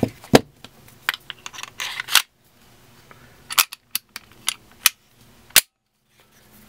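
Springfield Armory XDS 9mm pistol being put back together: a string of sharp metal-on-polymer clicks and clacks as the slide is fitted back onto the frame, with a short scrape of the slide along its rails about two seconds in.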